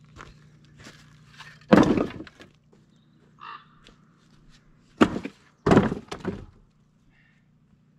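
Cut firewood logs dropped into a wooden pallet crate, wood knocking on wood: a clattering pile-up of knocks about two seconds in, then a single sharp knock about five seconds in followed at once by another clatter of several knocks.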